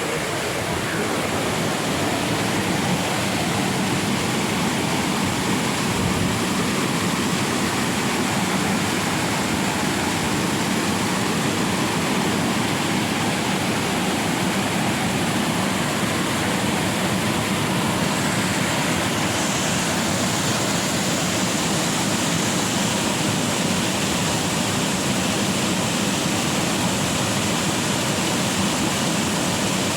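Waterfall: water pouring down and splashing in a steady, loud rush.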